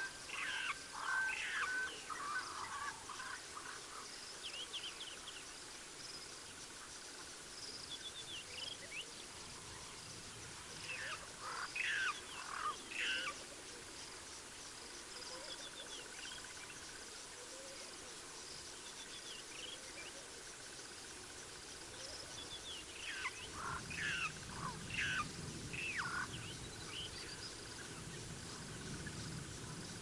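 Bush ambience: bursts of bird calls, short sweeping notes, come in three groups: right at the start, a little over a third of the way through and again about four-fifths through. A steady chirring of insects runs underneath, and a low rumbling noise joins for the last quarter.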